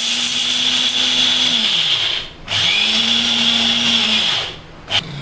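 Electric mixer-grinder (mixie) with a small dry-grinding jar, pulsed twice for about two seconds each, grinding peanuts, garlic and dried red chillies to a coarse powder. The motor runs with a steady high whine and drops in pitch as it winds down after each pulse.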